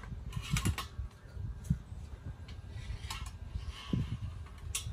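Light metal clicks and clinks from a Weber kettle grill's metal vent and temperature-control part as it is worked into the groove on the underside of the bowl. The clicks come in small clusters: near the start, about three seconds in, and once more near the end.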